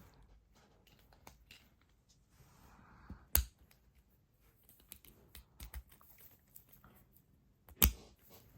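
Small plastic clicks and snaps of a Beyblade X top (blade, 4-80 ratchet and tapered bit) being fitted together by hand, with two sharp, louder snaps, one about three and a half seconds in and one near the end.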